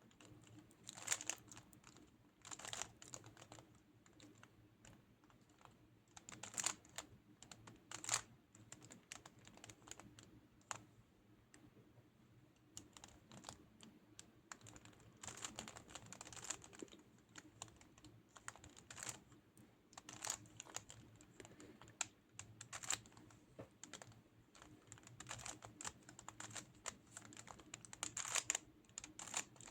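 Rubik's cube being solved by hand: faint plastic clicking as its layers are twisted, in irregular spurts of quick turns with short pauses between.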